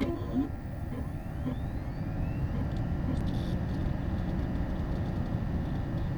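Desktop computer running just after power-on: a steady low whir of fans and drive, with a faint rising whine in the first few seconds as it spins up.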